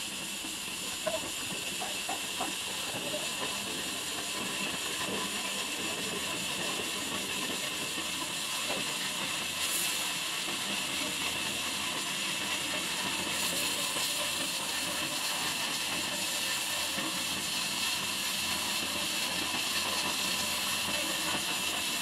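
Band sawmill blade running steadily through a log, lengthwise along the grain: an even, continuous high hiss of the blade in the wood.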